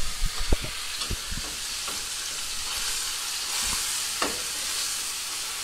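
Ground meat and onions sizzling in a hot skillet while a wire potato masher knocks against the pan, breaking up the meat. The knocks come thick in the first two seconds, then a few more spaced out, over a steady sizzle.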